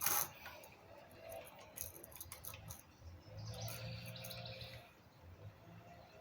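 Faint scattered clicks and rattles of a chainsaw being handled as its cover is worked off, with a sharper click at the start. A brief faint squeak or hum sounds a little past the middle.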